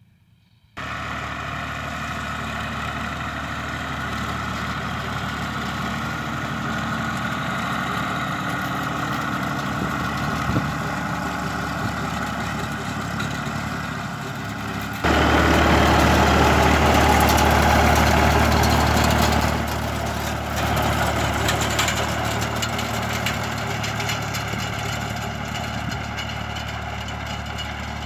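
Massey Ferguson 135 tractor engine running steadily while pulling a hay rake. It starts abruptly about a second in and is clearly louder for several seconds from about halfway, as the tractor passes close.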